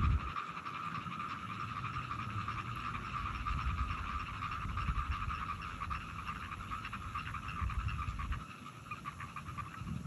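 Chorus of frogs calling, a steady dense pulsing trill, with a low rumble underneath that stops about eight and a half seconds in.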